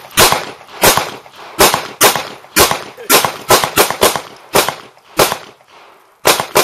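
Handgun shots fired in quick, uneven succession, about a dozen sharp cracks, each trailing off in a short echo.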